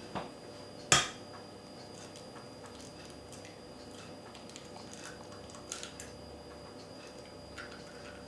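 An egg being cracked by hand: one sharp knock about a second in, then a few faint clicks and crackles of shell as it is pulled open over a plastic jug.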